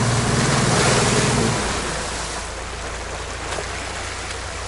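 All-wheel-drive SUV driving through slush and water: the engine runs under load over a steady hiss of tyres churning and splashing. The engine note fades about a second and a half in, leaving mostly the splashing hiss.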